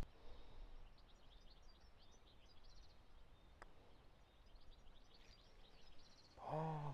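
Faint outdoor quiet with small birds chirping in short repeated phrases, and a single soft click about halfway through.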